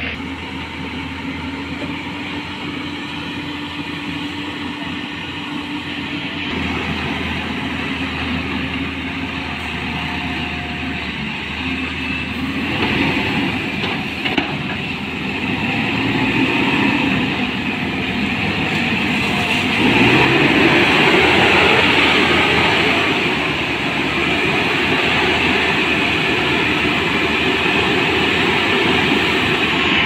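Heavy diesel tipper truck engine running steadily, growing louder about two-thirds of the way through.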